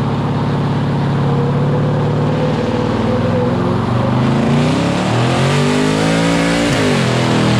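Engine running steadily, then revving: its pitch dips, climbs and drops sharply near the end.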